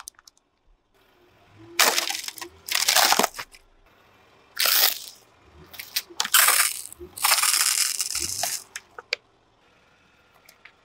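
Car tyre crushing plastic objects and a plastic bottle of liquid, heard as a series of short crunching and squirting bursts, the longest about seven seconds in.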